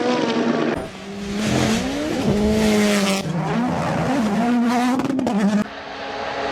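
Rally car engines revving hard, the pitch climbing and dropping through gear changes, heard in short clips that change abruptly about a second in and again near the end.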